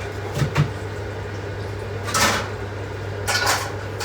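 Kitchen handling sounds while baking: two quick knocks about half a second in, then two short scraping or rustling bursts, over a steady low hum.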